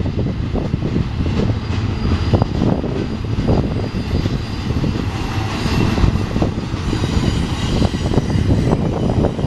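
Double-stack container train passing close by: a steady loud rumble of steel wheels on rail, with frequent irregular clanks and rattles from the well cars.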